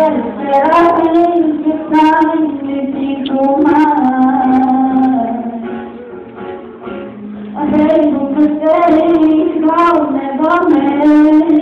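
A female voice singing a slow melody over acoustic guitar. The voice breaks off about six seconds in and comes back about a second and a half later.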